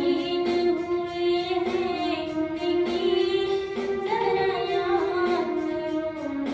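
A young female voice singing a slow, held melody over instrumental accompaniment.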